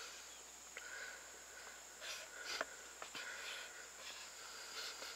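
Faint scraping of a knife point scoring a line around a green-wood stick: several short scrapes and small ticks as the blade is drawn round and the stick is turned.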